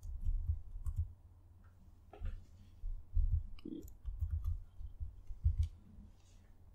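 Computer keyboard keys being typed: a string of irregular keystroke clicks with short pauses, as a password is entered.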